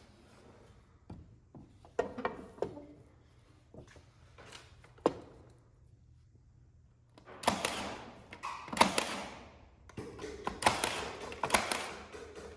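Wood being handled during trim carpentry: a few scattered knocks and clunks, then from about halfway on a run of louder scraping, rustling bursts with sharp clicks.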